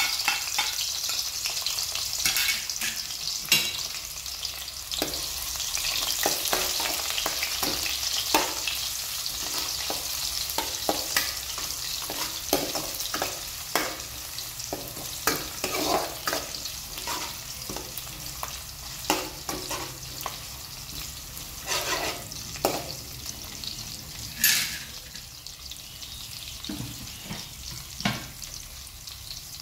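Sliced onions sizzling in hot oil in a pan, with a spoon scraping and clinking against the pan as they are stirred. The sizzling eases off near the end.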